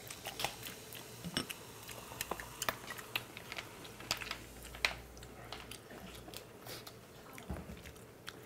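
Mukbang eating sounds: chewing and lip smacks over Jjapaghetti black-bean noodles, with scattered small clicks and taps at irregular moments, and a drink of cola from a glass near the end.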